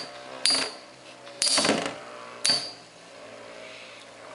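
Two Beyblade metal spinning tops, Hell Kerbecs in boost mode and Flame Byxis, whirring steadily as they spin on a white plastic stadium floor, with three sharp clacks about a second apart as they collide.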